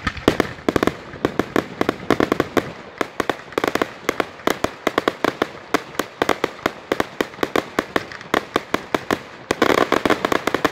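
Fireworks display: rapid bangs and pops from aerial bursts, several a second, coming thickest in the last second or so.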